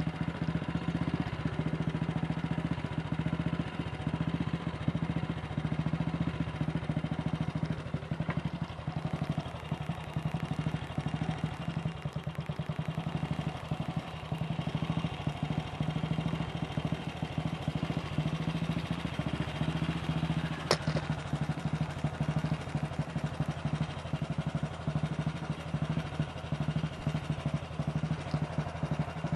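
AJS Model 8 motorcycle's single-cylinder four-stroke engine running at a steady speed, with a sharp click about 21 seconds in.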